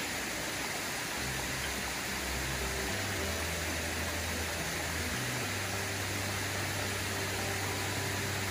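Steady rush of a shallow rocky creek flowing over stones, with a low rumble underneath from about a second in.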